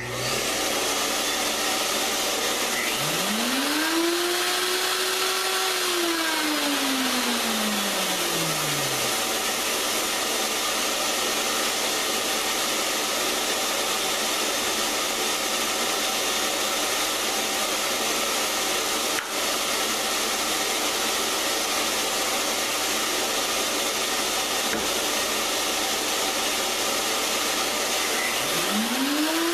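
A shop vacuum switches on and runs steadily throughout. Over it, a woodworking router spins up about three seconds in, runs briefly, winds down over a few seconds, and spins up again near the end.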